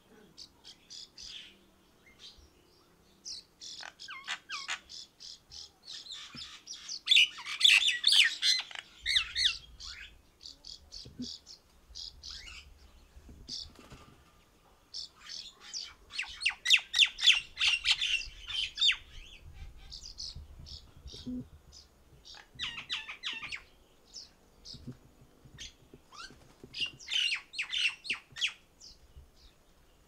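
Common mynas calling in bursts of rapid, harsh chattering notes, loudest about a quarter of the way in, again just past the middle, and near the end.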